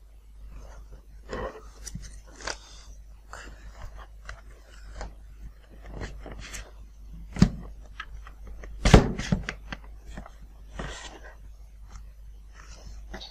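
Handling noises of a foam model-aircraft wing panel being slid onto a metal tube spar: scattered scrapes and light knocks, with two sharper knocks about seven and nine seconds in.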